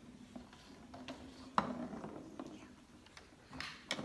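Scattered light clicks and knocks of toys being handled, the sharpest about a second and a half in and a few more near the end.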